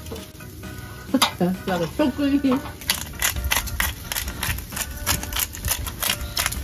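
Chicken and beef strips grilling over a charcoal grill, with a quick, irregular run of sharp crackles and pops starting about three seconds in as fat spits on the hot coals.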